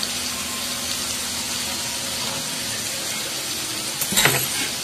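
Tomato masala frying in mustard oil in a metal kadai, a steady sizzle. A brief clatter comes about four seconds in.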